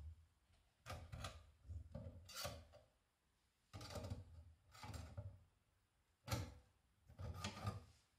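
Faint handling noises as a blade is fitted onto a Scheppach MSB1100 metal band saw: several short bursts of scraping and rubbing as the blade and pliers are worked around the wheels and guides, with one sharp click past the middle.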